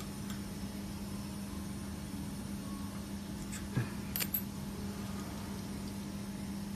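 Steady low hum from the ACF/COF bonding machine, with a few light metal clicks a little past halfway as the quartz bar holder's levelling screw is adjusted with a hex key.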